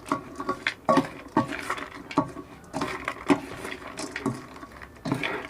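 Spoon clinking and scraping against a bowl as chatpate is mixed: many irregular sharp knocks and clicks, some with a brief ring.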